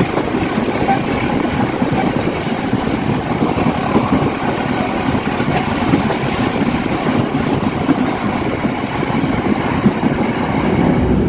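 Passenger train running at speed, heard from the open side of a moving carriage: a steady rumble of wheels on rail mixed with rushing air.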